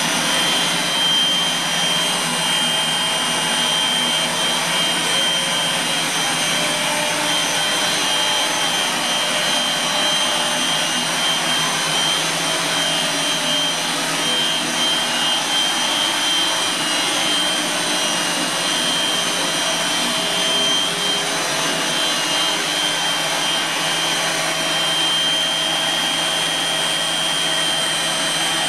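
GEA Westfalia DA 100-06-117 nozzle separator running at speed: a loud, steady high whine over even, dense mechanical noise that does not change.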